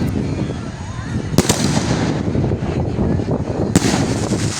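2-inch fireworks cake firing its shells, with sharp bangs at the start, about a second and a half in and near the end, over a continuous rumble and crackle of bursting shells.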